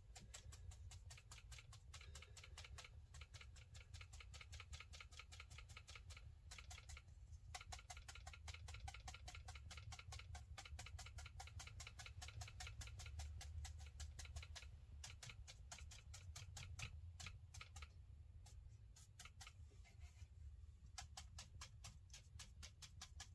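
Hake brush stippling dark paint onto watercolour paper: faint, rapid, even dabbing taps, several a second, with a couple of brief pauses, over a low steady hum.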